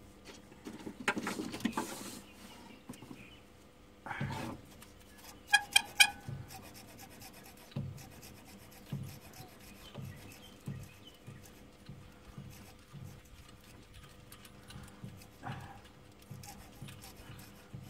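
Hand tool undoing a steel alternator pivot bolt: a rasping scrape near the start, a few sharp metallic clinks about five and a half to six seconds in, then soft knocks about once a second as the bolt is worked loose.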